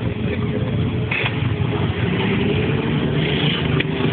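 Engines of many motorcycles running together as a column of bikes rides past.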